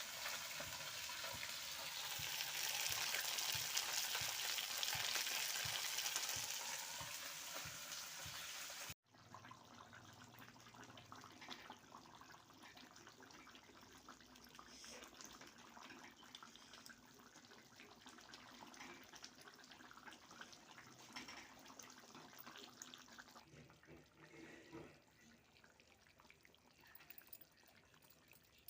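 Food sizzling in hot oil in a pan, loud for about the first nine seconds; after an abrupt cut it goes on much more quietly, with scattered light clicks.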